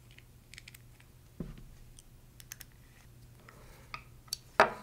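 Small metal parts clicking and ticking as a 1/4 inch socket head screw is fitted into an aluminium bracket and turned with a hex key, with a louder knock near the end.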